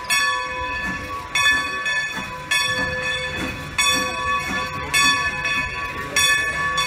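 Steam locomotive bell on Strasburg Rail Road #90, a Baldwin 2-10-0 Decapod, ringing slowly with one strike about every 1.2 seconds. Each stroke keeps ringing into the next. A low rumble of the slowly moving engine lies underneath.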